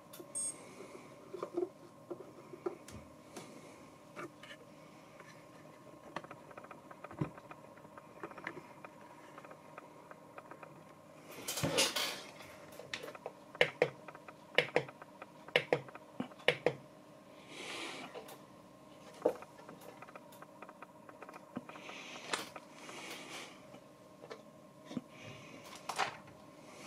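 Scattered small clicks and light knocks from a hand working the rotary control knob of a homemade bench power supply's digital control module. A run of quick clicks comes about halfway through, with a few brief rustles of handling, over a faint steady hum.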